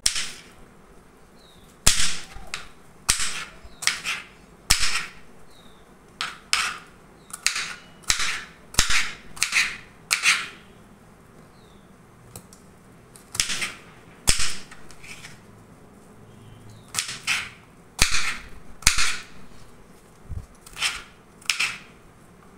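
Kitchen knife chopping peeled raw green mango on a wooden cutting board: sharp knocks of the blade through the crisp fruit onto the board, irregular and often less than a second apart, with a pause of a couple of seconds in the middle.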